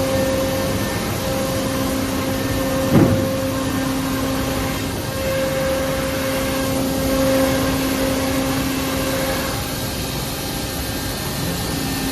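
Homag Vantech 480 CNC router running, a steady machine hum with a steady whine over it. A single short knock about three seconds in.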